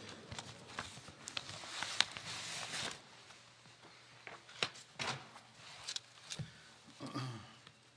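Rustling and shuffling of a seated congregation, with scattered light clicks and knocks. The rustling is densest in the first three seconds, then thins out to a few separate clicks.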